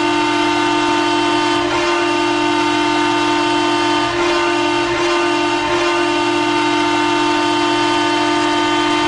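Ice hockey goal horn sounding one long, steady blast at a single pitch, signalling a goal, with a slight waver about four seconds in.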